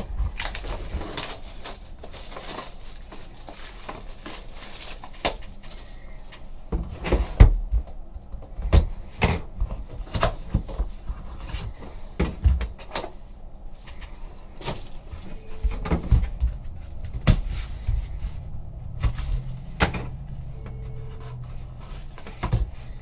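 Cardboard of a Panini Prime Cuts hobby box being handled and opened: irregular taps, knocks and clicks with rubbing and scraping as the lid is lifted and the small inner card box is pulled out and slid open.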